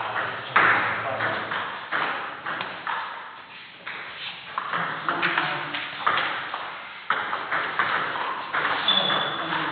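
Table tennis ball being struck back and forth in a doubles rally: sharp plastic clicks off the bats and bounces on the table, coming at an uneven pace of one every half second or so.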